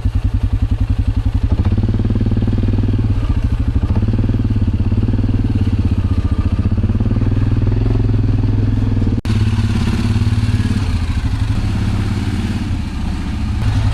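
A vehicle being driven, heard from inside: a loud, steady low rumble of engine and road with a fast, regular pulsing, broken once by a sudden cut about nine seconds in.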